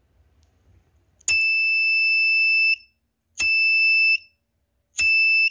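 Small electronic buzzer on a breadboard flame-sensor circuit sounding a steady high beep three times, the first for about a second and a half and the next two shorter. Each beep starts with a click. The buzzer sounds because the sensor detects the lighter flame held to it.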